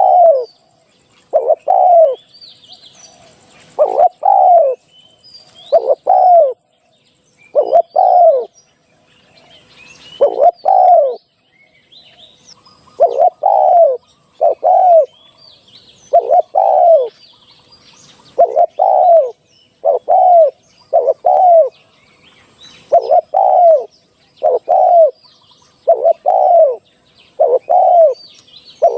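Spotted dove cooing over and over, a low phrase, often doubled, about every one to two seconds: a live male's call used as a decoy to lure wild spotted doves. Small birds chirp faintly in the background.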